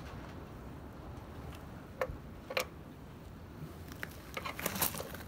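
A few sharp clicks and taps, two about two seconds in and a quick cluster near the end, from hands working the small plastic drain tube and fittings at the carburetors of a Honda three-cylinder four-stroke outboard.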